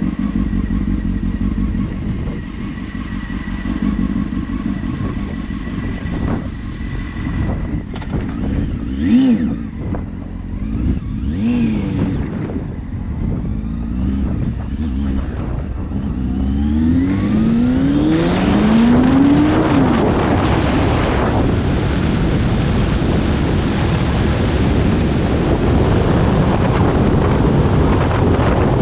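Motorcycle engine running steadily, then rising in pitch again and again as it accelerates through the gears. From about two-thirds of the way in, a loud steady rush of wind on the microphone takes over at riding speed.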